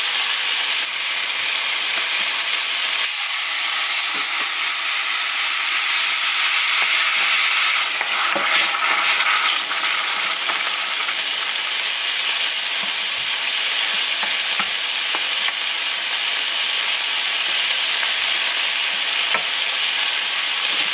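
Rice frying in oil in a stainless steel skillet, sizzling steadily as a tomato-based sauce is poured in and stirred with a wooden spoon. The sizzle grows louder and brighter for a few seconds about three seconds in, with a few light scrapes and clicks of the spoon.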